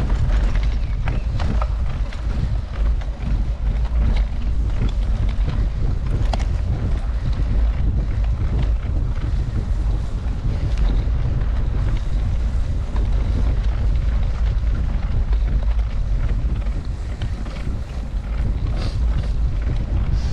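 Wind buffeting the microphone of a camera riding along on a mountain bike, a steady heavy rumble, with scattered clicks and rattles of the bike over rough ground.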